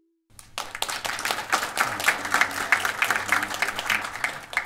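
Audience applauding, many hands clapping at once; it starts suddenly just after a brief silence and is cut off abruptly.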